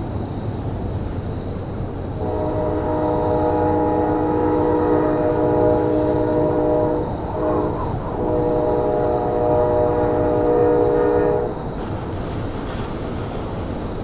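Locomotive air horn sounding a chord of several tones in a long blast, a brief break, then a second long blast that cuts off sharply. A steady low rumble runs underneath.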